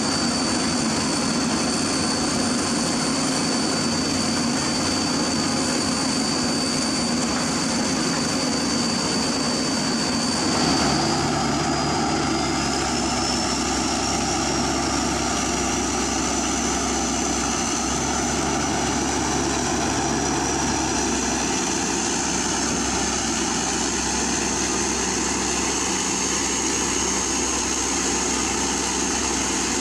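Hydraulic excavator diesel engines running steadily, with a high thin whine over the engine noise. About 11 seconds in the sound changes abruptly to a steadier engine hum, and the whine slowly climbs in pitch.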